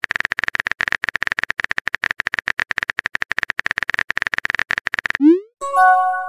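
Synthetic keyboard click sounds from a texting-app video, rapid at about a dozen a second, as a message is typed. About five seconds in comes a short rising whoosh as the message is sent, then a chime of several steady tones.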